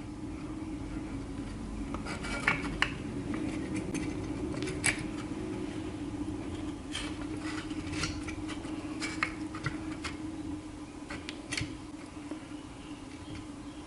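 Irregular metallic clicks and clinks from a guided knife-sharpening rig as its angle is raised and set, over a steady low hum.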